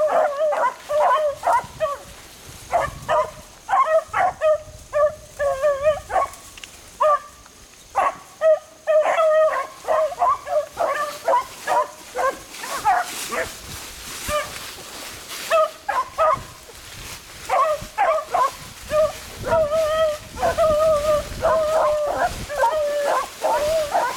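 Beagles giving tongue in cover, a rapid run of short barks mixed with drawn-out howling bawls, the baying of hounds working a rabbit's track. The calling thins out twice for a second or two, and brush rustles underfoot.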